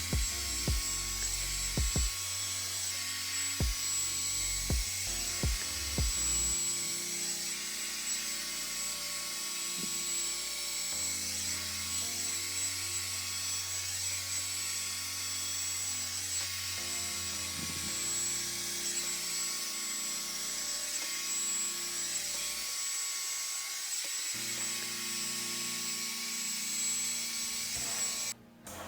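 Revlon One-Step hair dryer brush running steadily, a rush of air with a high whine, switched off near the end. A few knocks in the first seconds and faint background music.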